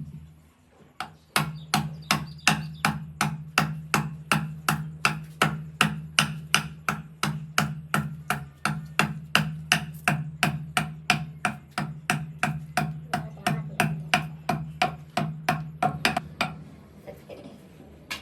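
Steady, rhythmic hammering on wood, about three blows a second, over a steady low hum; it stops near the end.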